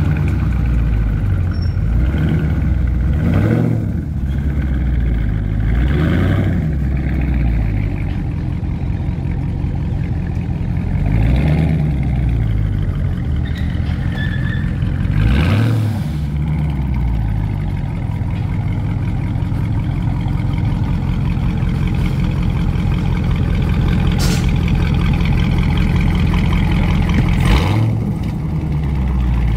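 Dodge Challenger's 6.4-litre HEMI V8 running loudly through its modified exhaust, blipped several times so the pitch rises and falls.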